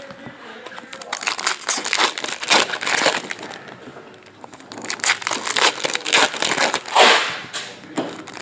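Foil trading-card pack wrappers crinkling and crumpling as packs are torn open and handled, in uneven rustles that are loudest about seven seconds in.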